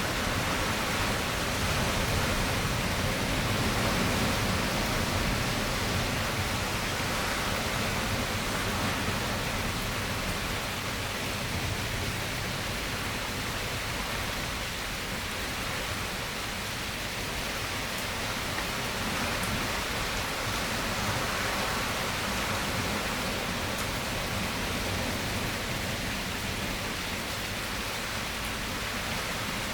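Steady rain falling, an even hiss without pauses or thunder.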